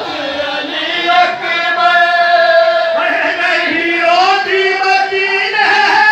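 A man chanting a noha, a Shia mourning lament, into a microphone in long held, sliding notes, with other men's voices joining in.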